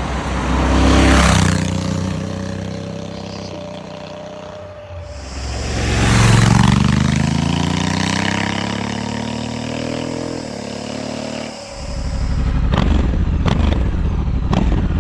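Honda Africa Twin 1100's parallel-twin engine with its stock exhaust, accelerating past twice, loudest about a second in and again around six seconds, its pitch climbing through the revs and falling away after each pass. Near the end a rough rumble with a few sharp knocks.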